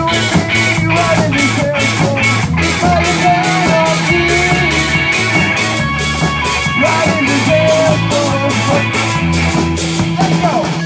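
Live rock band playing: guitars over a drum kit keeping a steady, fast beat.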